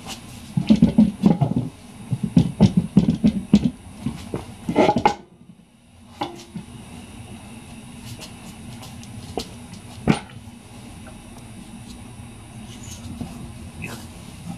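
Metal clanking and rattling from a 1944 Ford 2N's rear axle shaft, hub and brake drum being worked apart: a dense run of knocks for about five seconds, then a brief break and a few single clanks.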